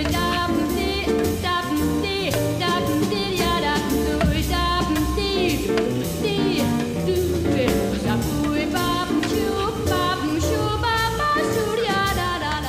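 Background music: a song with a sung melody over bass and drums.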